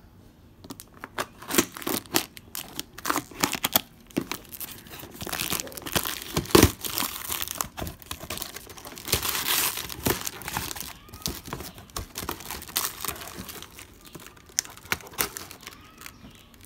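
Cardboard box being torn open by hand: packing tape ripping off and cardboard flaps tearing, in irregular rips and crackles. The loudest sharp rip comes about six and a half seconds in.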